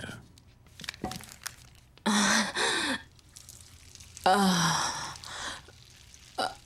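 A woman sighing twice, breathy and voiced, each sigh about a second long with the voice falling in pitch.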